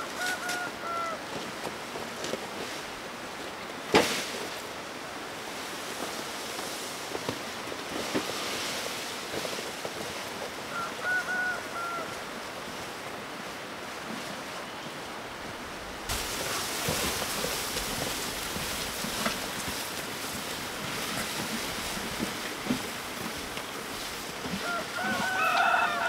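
Chickens calling a few times over a steady outdoor hiss. There is a single sharp knock about four seconds in, and a louder burst of calls near the end.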